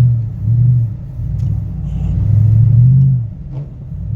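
Car engine and road rumble heard from inside the cabin while driving slowly, swelling and easing several times with the throttle.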